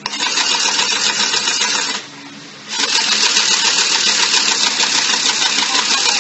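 Battery-powered toy sewing machine running with a fast, rattling needle chatter. It runs for about two seconds, stops briefly, then starts again and keeps running.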